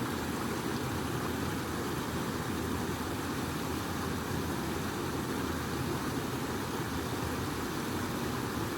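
Steady rush of flowing water, an even noise with no breaks that sits mostly low.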